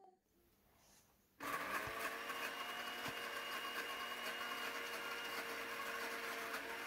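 Countertop blender motor running steadily, whipping egg and oil into thick mayonnaise; it comes in suddenly about a second and a half in, after a near-silent gap.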